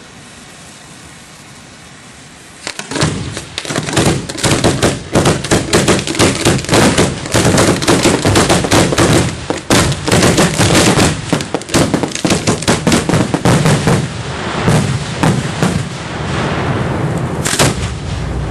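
A rapid barrage of fireworks shells firing, heard close up at the firing line. About three seconds in, many sharp reports a second begin, packed densely for about ten seconds. They then thin out over a continuing crackling rumble, with one more loud report near the end.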